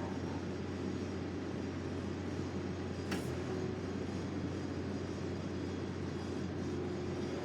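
ASV RT-40 compact track loader running steadily while working dirt, with a single sharp click about three seconds in.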